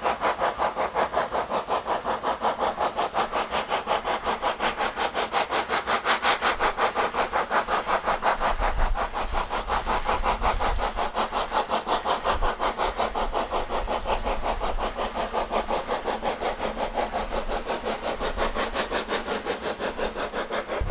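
Steam rack locomotive H 2/3 No. 5, built 1894, working uphill while pushing its coach, its exhaust beating in a fast, steady rhythm of about five chuffs a second.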